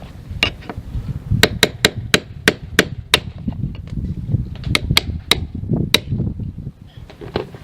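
A hammer striking the tiles of an exterior wall in a series of sharp knocks: a quick run of about six, then a pause, then about four more around five to six seconds in. A low rumble runs underneath.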